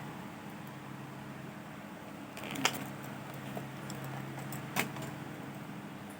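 Steady low electrical hum, with two short metallic clinks about two seconds apart as metal tools or probes are handled on a workbench.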